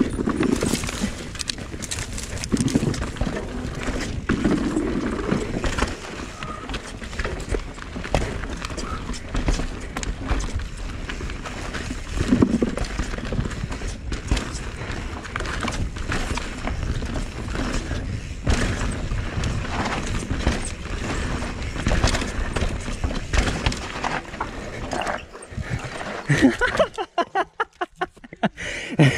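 Norco Sight mountain bike ridden fast down a dirt forest trail: tyre noise on dirt and roots, the bike rattling over bumps and wind rushing on the camera, with knocks as the tyres cross wooden slats at the start. Near the end the rush drops away to a quick run of even clicks.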